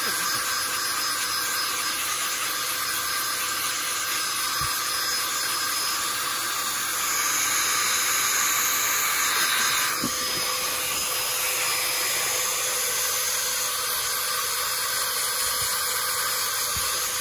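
Handheld rechargeable electric air duster running continuously, its small motor whining steadily under a strong rush of air as it blows dust out of a graphics card's cooling fan. The blast gets a little louder in the middle.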